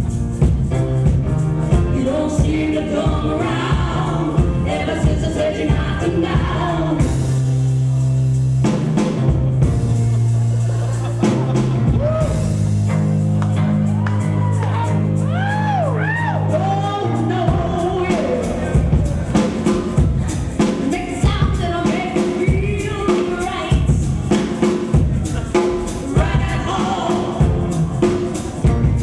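A live band playing a song with a drum kit while singers sing into microphones. About halfway through, the drums drop out for a few seconds under held chords while voices swoop up and down, then the beat comes back.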